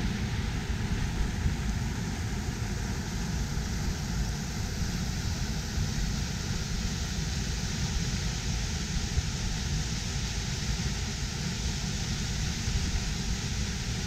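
Mountain stream and waterfall rushing and splashing over rocks: a steady, deep rush of water that runs on without a break.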